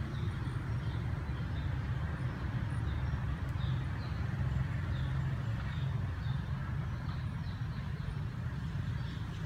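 Forest ambience: a steady low rumble under short, high chirps repeating every half second or so.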